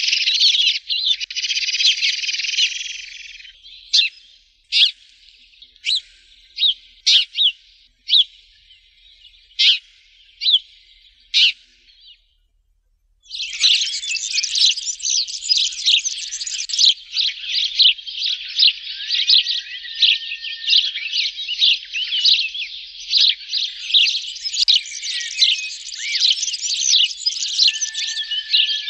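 Sparrows chirping: a dense, high chatter, then about a dozen separate sharp chirps, a one-second break about twelve seconds in, then a dense chatter of chirps again.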